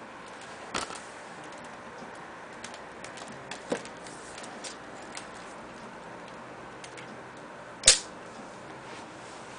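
Clicks and light knocks from a convertible laptop's swivel-screen hinge as the screen is turned around and folded down flat, ending in one loud sharp snap near the end as the screen closes onto the base.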